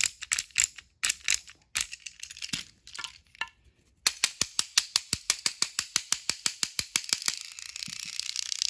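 TOMY Arthur battery-powered toy train running under test. First come irregular clicks, then from about four seconds in a steady clicking about six times a second, which gives way near the end to a continuous whir of the motor and gearing. It is loud.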